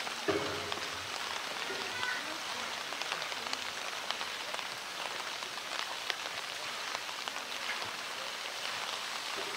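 Steady rain falling on hard rock and concrete surfaces, a continuous hiss scattered with many small drop ticks.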